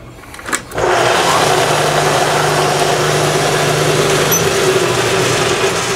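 Homemade table saw driven by a single-phase 1,740 RPM induction motor, switched on at the breaker: a click, then the motor and blade start abruptly about a second in and run with a steady hum and whir, fading near the end.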